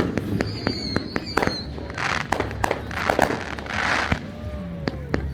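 Consumer fireworks display going off: a rapid series of sharp bangs and reports with bursts of crackling, and a high whistling tone early on.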